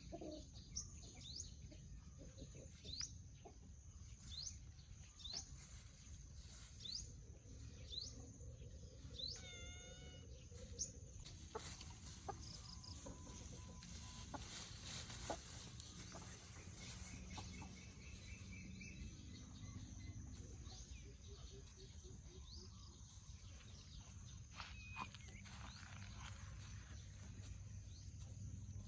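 Free-range laying hens clucking and calling faintly. Short high chirps repeat about once a second for the first third, and scattered calls follow over a steady low background noise.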